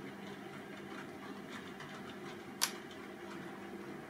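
H0-scale model freight train of tank wagons running along the track: a steady motor hum and wheel-on-rail rumble with faint ticking, and one sharp click about two and a half seconds in.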